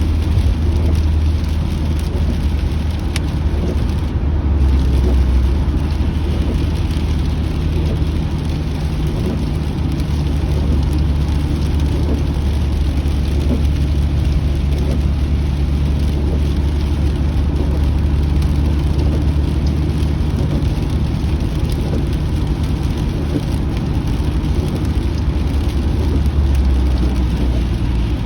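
Steady low road and engine rumble inside a moving car's cabin, with rain falling on the car body and glass.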